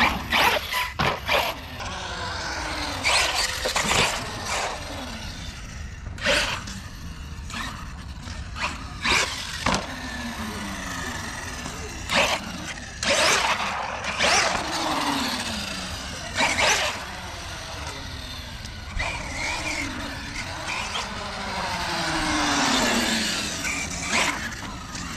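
Arrma Kraton EXB 1/8 RC truck's brushless motor whining up and down with the throttle, over and over, as it drives across concrete. Short sharp bursts of tyre scrub and landing knocks break in every few seconds.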